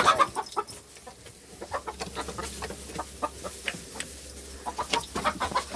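Chicken hens clucking, a scattered run of short, sharp clucks with a few brief higher calls.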